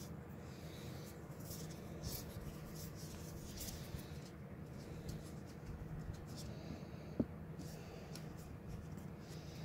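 Cat grooming brush rubbing against a long-haired cat's fur, heard as short, irregular scratchy strokes, with one sharp click about seven seconds in.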